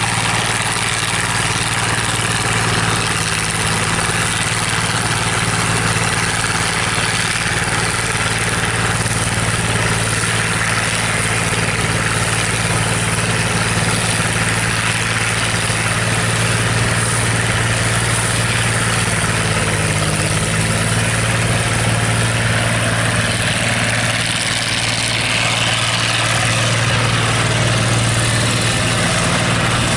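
New Idea 705 Uni System power unit and Uni Chopper forage harvester running steadily under load while chopping corn silage: a steady low engine hum under an even rushing noise.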